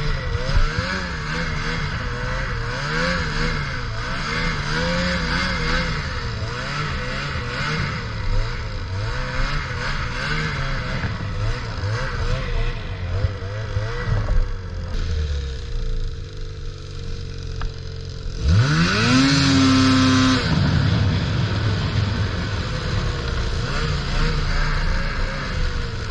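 Ski-Doo Summit 600R E-TEC snowmobile's two-stroke engine running under changing throttle, its pitch rising and falling. About two-thirds of the way in it drops back for a few seconds, then revs sharply up to a high, steady pitch for about two seconds before easing off again.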